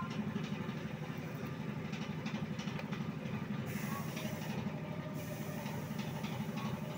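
An engine idling steadily: a low rumble with a fast, even pulse. A few faint clicks sound over it.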